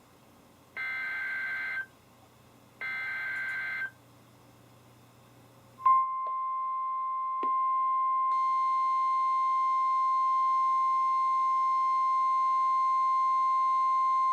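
Specific Area Message Encoding (SAME) data header bursts from a NOAA Weather Radio Emergency Alert System (EAS) alert: two buzzing bursts, about a second each and two seconds apart. About six seconds in, the steady 1050 Hz warning alarm tone starts and holds, announcing a new warning. Further steady tones join it about a second and a half later.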